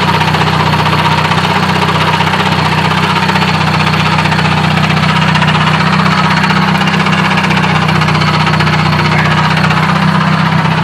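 Hyundai Tiburon engine running steadily with a clanking from the drivetrain, which the owner suspects is a failing transmission bearing, perhaps the throwout bearing, the input shaft or a taper bearing.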